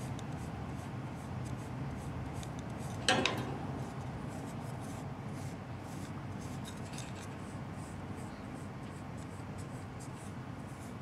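Soft, repeated rubbing of a bristle-tipped stick over a cat's fur. About three seconds in there is one brief, sharper sound, louder than the rubbing.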